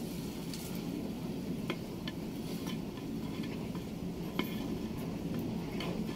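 A wooden spatula stirs rice in a blackened cooking pot, scraping through the grains with a few sharp knocks against the pot, over a steady low background noise.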